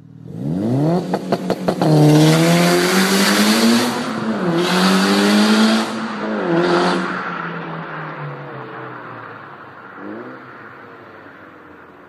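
Mitsubishi Lancer Evolution IX's 2.0-litre turbocharged inline-four launching hard and accelerating away, with a quick run of sharp cracks about a second in. The engine note climbs, drops and climbs again at two upshifts, then fades as the car drives off into the distance.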